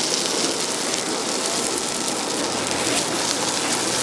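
Chrysanthemum-bread batter sizzling and crackling steadily in a hot griddle mold.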